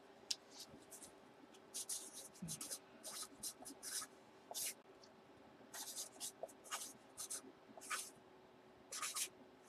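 Marker pen writing a couple of words by hand, a run of short quick scratchy strokes with brief pauses between them.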